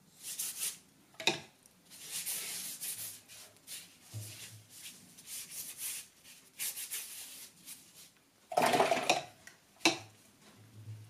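A paintbrush swished and scrubbed across watercolour paper in a series of strokes, with a sharp click about a second in and another near the end as the brush knocks against the paint pots. Just before the last click comes a louder, fuller scrubbing.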